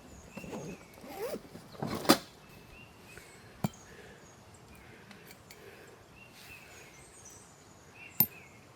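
Rustling with a few sharp knocks, the loudest about two seconds in, over faint short high chirps.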